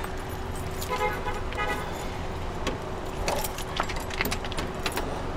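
Scattered clicks and knocks with a jangle of keys over a low steady rumble, and a brief faint voice about a second in.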